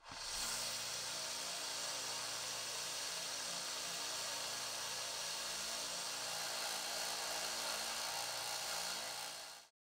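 Combination belt sander's motor and sanding belt running steadily with a low hum and a high hiss, while the knife's steel pommel is held to the belt. It starts right away and cuts off suddenly near the end.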